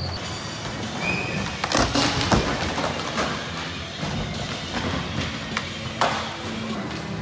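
Skateboard knocking and thudding on a concrete skatepark floor over a low rolling rumble: a cluster of sharp knocks about two seconds in and another single knock about six seconds in.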